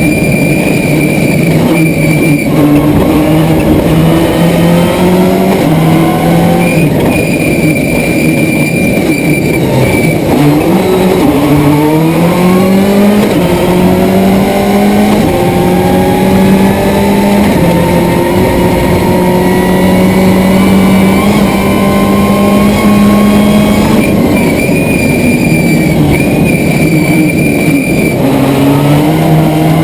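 Subaru Impreza S11 WRC's turbocharged flat-four rally engine running hard at stage pace, heard from inside the car. Revs hold high, drop sharply about ten seconds in, then climb back up, with another brief lift near the end.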